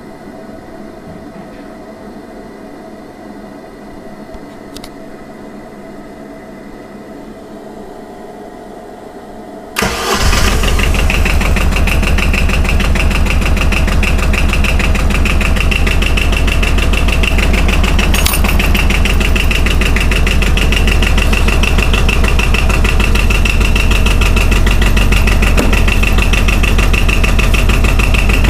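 Arctic Cat 700 Diesel ATV's two-cylinder diesel engine, heard first as a steady hum and then starting suddenly about ten seconds in. It settles into a steady idle with a fast, even beat.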